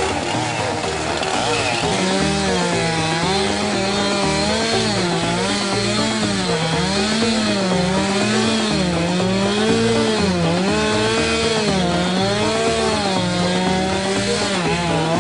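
Chainsaw cutting blocks out of river ice, its engine pitch rising and falling about once a second as the saw works under load.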